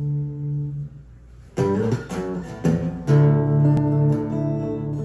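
Steel-string acoustic guitar strummed, with a neck-rack harmonica playing long held notes over it. The held notes break off just before a second in, a few hard guitar strums come in, and the harmonica notes return about three seconds in.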